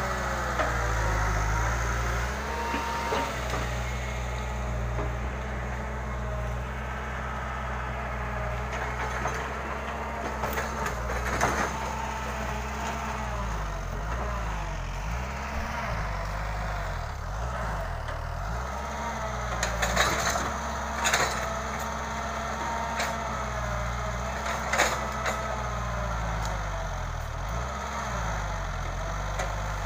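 Hitachi hydraulic excavator's diesel engine running steadily, its pitch dipping and recovering several times as the machine works under load. A few sharp cracks of breaking wood stand out, about 11 seconds in, twice around 20 seconds, and once near 25 seconds.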